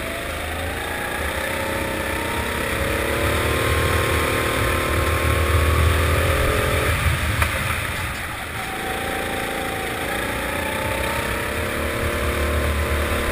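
Four-stroke kart engine heard on board, its pitch climbing under acceleration, cut back briefly about seven seconds in as the throttle lifts for a corner, then climbing again before easing off near the end.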